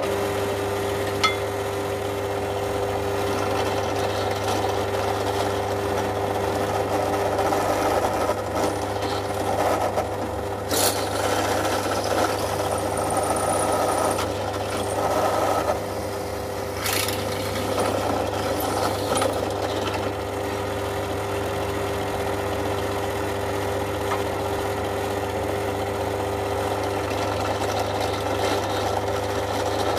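Bench drill press running with a steady motor hum while its bit is fed into a flat steel bar. The rough cutting noise swells and eases a few times in the first half, with a few sharp clicks.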